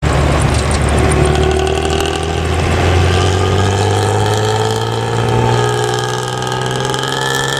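Hino front-mounted diesel bus engine running under load with the snoring growl that bus fans call 'ngorok', its pitch rising slowly as it accelerates.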